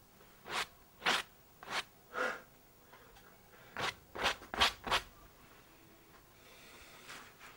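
A series of short scraping strokes: four evenly spaced in the first couple of seconds, then four more in quicker succession a little before the middle.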